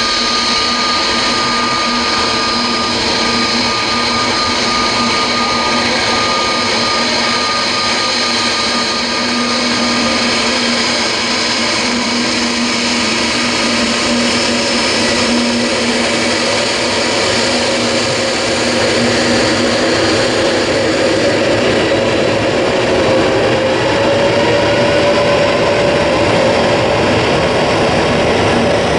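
Airbus A321's twin turbofan engines running at low power as the airliner taxis onto the runway: a steady whine over a rush of engine noise. From about two-thirds in, one tone slowly rises and the sound grows a little louder as the engines spool up.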